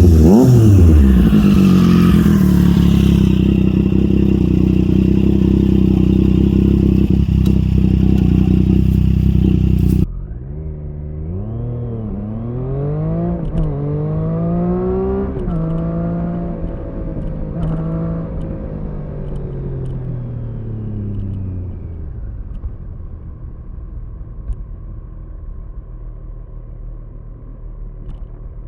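Triumph Street Triple 765 RS inline three-cylinder engine through an SC Project S1 exhaust, held at high revs for several seconds. After a sudden cut it is heard again, quieter, revving up and down in several blips before dropping to a low steady idle.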